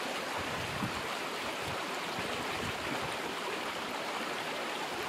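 A steady, even rushing hiss, with a faint soft knock about a second in as a stone is handled on the sand bed.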